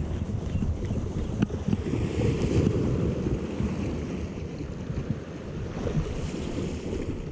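Wind buffeting the microphone with a gusty low rumble, over the wash of small waves against shore rocks.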